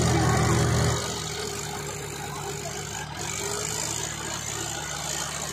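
Tractor engines running under heavy load while one tractor tows another out of soft soil. About a second in, the engine note drops to a lower, steadier level.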